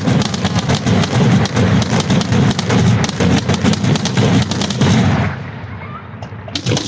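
Fireworks going off close by in a rapid barrage of bangs and crackles. The barrage breaks off about five seconds in and starts again just before the end.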